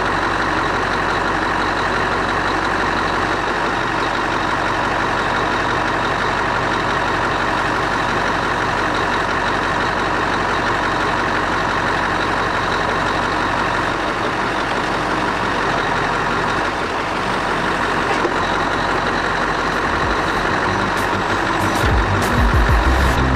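Scania R500's V8 diesel engine running steadily while it drives the loader crane's hydraulics, with a thin, steady high whine over the engine. A louder low pulsing comes in near the end.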